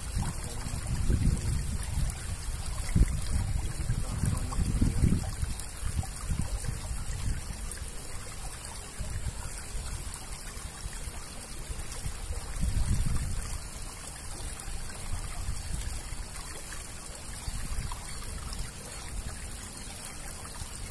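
Water trickling steadily through a concrete drainage culvert, with low rumbling gusts during the first five seconds and again about thirteen seconds in.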